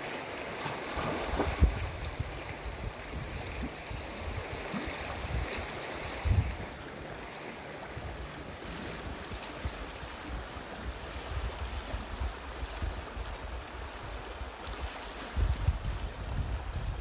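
Shallow river water rippling along a pebble shore, with wind buffeting the microphone in low rumbling gusts: sharp bumps about a second and a half in and around six seconds, and a stronger stretch near the end.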